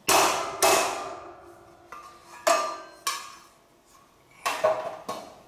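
A big hammer striking a steel roof-truss channel about seven times at irregular intervals, each blow ringing and fading, as the steel piece is bent out so it will fit over the cross-member.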